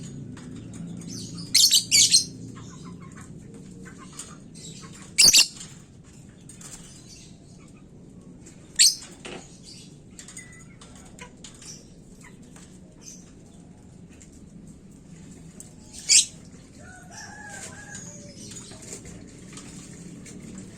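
Lovebird giving short, shrill, high-pitched calls, about five in all: two in quick succession about two seconds in, then single calls several seconds apart, with soft rustling and small ticks between them.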